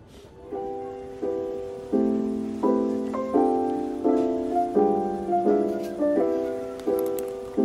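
Background piano music: soft chords struck at an even pace, about one every 0.7 seconds, each fading before the next.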